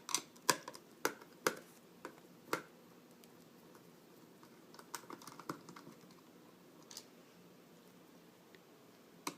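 Scattered sharp clicks and taps of hard plastic and metal, about five close together in the first three seconds and a few sparser ones later, from handling the NutriBullet's plastic motor base while working on the screws in its underside.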